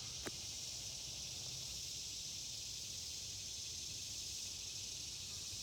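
Steady high-pitched chorus of insects, an unbroken shrill buzz, over a faint low rumble.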